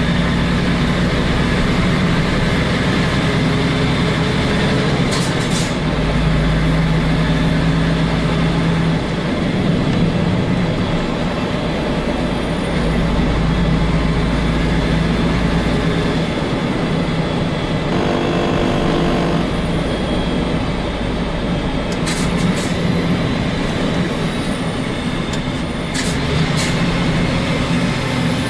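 Semi-truck diesel engine running under way, heard inside the cab through the open roof hatch, with the truck loaded to almost 30 tonnes. The engine note shifts level several times, and a few sharp clicks come through about five seconds in and near the end.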